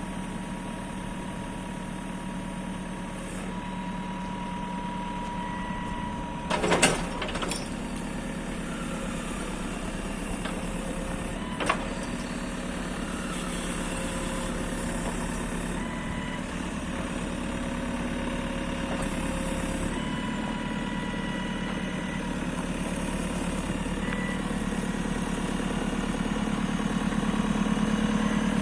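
JCB 2CX backhoe loader's diesel engine running steadily and growing louder toward the end. A loud metallic clank comes about seven seconds in, and a single sharp knock near twelve seconds.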